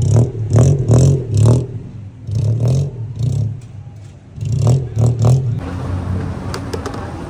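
Motor vehicle engine revved hard in a series of irregular blips with a loud exhaust, then settling to a steadier run near the end.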